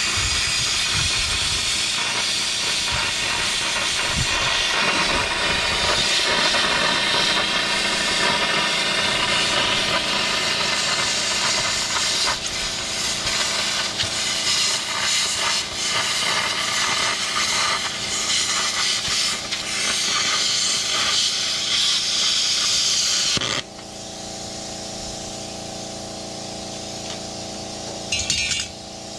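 Plasma cutter cutting through steel plate: a loud steady hiss over a steady machine hum. About 23 seconds in the cutting hiss stops suddenly, leaving a quieter steady hum.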